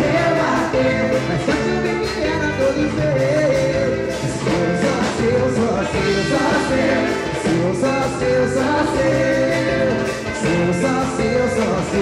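Live swingueira band playing: a male lead singer sings over bass guitar, percussion and trumpet at a steady dance groove.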